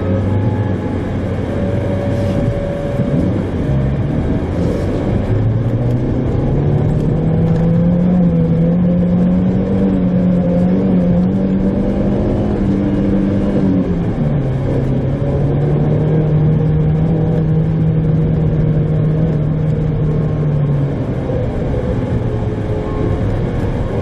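Mitsubishi Pajero Mini's 660 cc four-cylinder engine heard from inside the cabin, pulling and rising in pitch as the car gathers speed on a snowy road. Midway the pitch drops suddenly with an upshift, then holds steady before easing off near the end.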